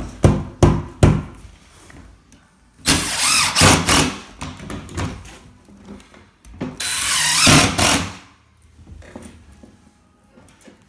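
A few quick wooden knocks as boards are set in place, then a power drill driving screws down into a pine 1x4 sidewall on an OSB tray base: two runs, one of about two seconds and one of just over a second.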